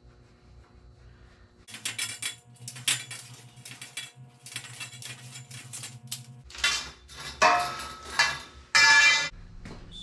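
Copper pipe being worked by hand on a concrete floor: a run of quick metallic clicks and scrapes, then a few louder metal clanks with some ringing near the end.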